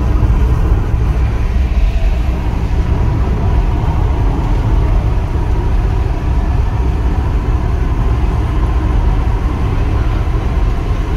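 Steady low rumble of a car on the move, heard from inside the cabin: tyre, wind and engine noise at cruising speed.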